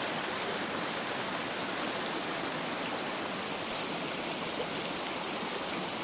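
Small rocky creek running over stones: a steady, even rush of water.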